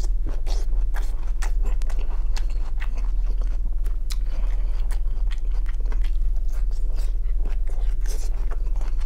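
A person chewing grilled shashlik meat and biting chunks off the skewer, with many short wet smacks and clicks, over a steady low hum.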